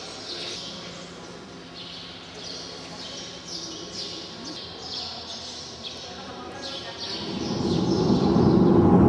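Small birds chirping over and over in short, high calls. From about seven seconds in, the steady rush of airplane cabin noise rises and becomes the loudest sound.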